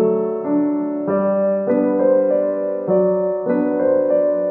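Background piano music, a slow melody over held chords, the notes changing about every half second.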